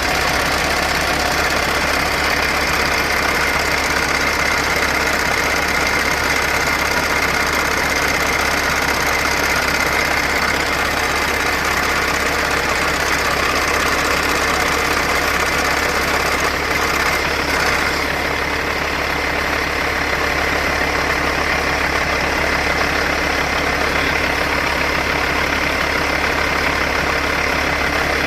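Cat C15 inline-six diesel in a Kenworth T800 idling steadily with a diesel clatter, heard close up, with a steady high whine over it. A higher hiss drops away about two-thirds of the way through.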